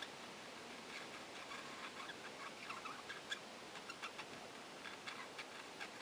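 Budgerigars chattering softly in an aviary: many short, quick chirps and clicks, starting about a second in, over a steady faint hiss.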